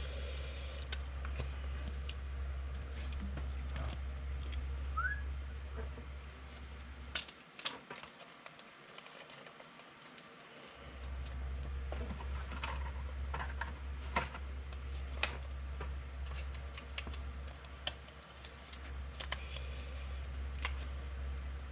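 Trading cards and pack wrappers being handled: scattered small clicks, taps and rustles. Under them runs a steady low hum, which cuts out for a few seconds about seven seconds in and then returns.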